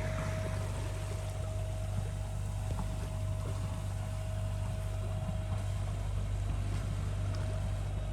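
Sailboat's engine running steadily under way, a low even hum with a thin steady whine above it, over a constant rushing hiss.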